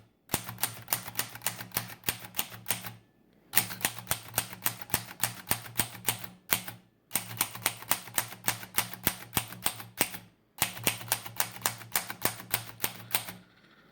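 1931 Remington Portable No. 3 typewriter being typed on with the shift lock engaged: rapid key strikes, about five a second, in four runs with short pauses between them.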